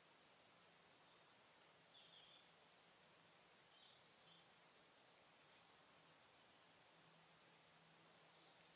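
Gundog whistle signals to a dog working a blind retrieve: a steady high note of under a second about two seconds in, a short pip around five and a half seconds, and another long steady blast starting near the end.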